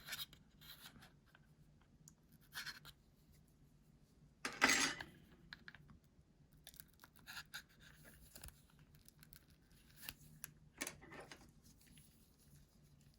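Faint scraping and small clicks of a pry tool working under an iPhone 7 Plus battery to free it from its adhesive, with one louder scrape nearly five seconds in.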